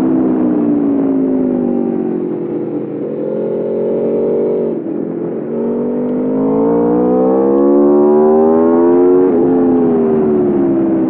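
2021 Aprilia RSV4 Factory's V4 engine heard onboard: the revs fall away over the first few seconds, hold briefly, then after a short break about five seconds in climb steadily in pitch. Near the end the pitch drops sharply and eases off.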